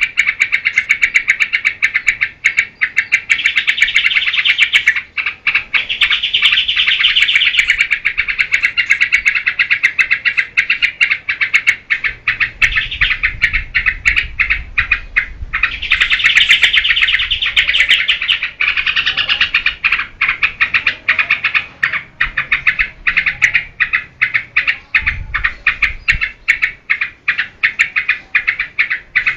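Yellow-vented bulbul (trucukan) singing loudly and almost without a break: long runs of fast, chattering notes, with two brief pauses.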